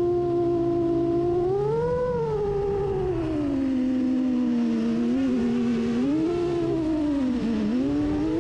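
FPV drone's electric motors whining, the pitch following the throttle. It holds steady, rises about two seconds in, settles lower for a few seconds, then dips and climbs again near the end.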